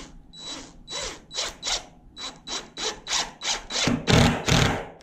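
Hand ratcheting screwdriver driving a screw into a pine board: a short rasping ratchet stroke about three times a second. The last two strokes, near the end, are the loudest.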